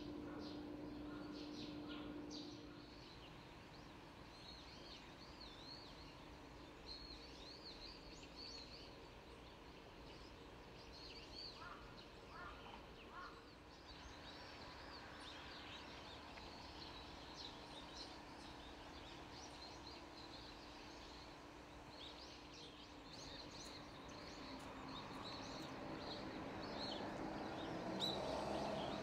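Small birds chirping and calling in many short, high notes over a faint outdoor background. A low steady hum fades out about two or three seconds in, and a soft rushing noise builds near the end.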